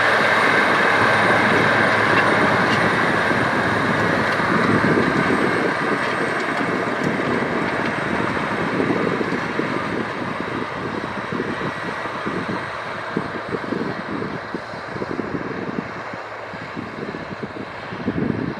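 John Deere 9520 four-wheel-drive tractor's 450 hp diesel engine pulling steadily under tillage load, mixed with the rough rumble of the Brillion Puli-Mulcher running through the soil. Loudest as it passes close, then it fades as the rig pulls away.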